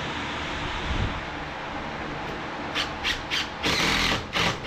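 One-handed trigger bar clamp being ratcheted tight on a lumber frame: a run of short noisy strokes, about three a second, starting a little over halfway through.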